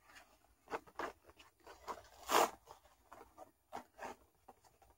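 Cardboard toy packaging being handled and worked open by hand: scattered small rustles and clicks, with one longer, louder rustle a little over two seconds in.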